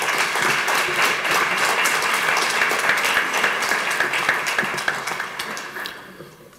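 Audience applauding, a dense run of many hands clapping that tapers off near the end.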